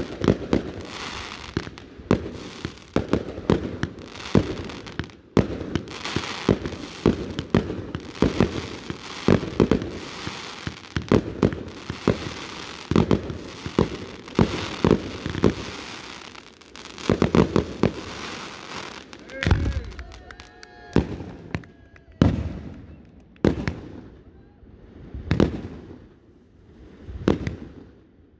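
Professional fireworks display: a dense barrage of aerial shells bursting in quick succession, with crackle between the bangs. After about two-thirds of the way in it thins to single shell bursts spaced a second or more apart.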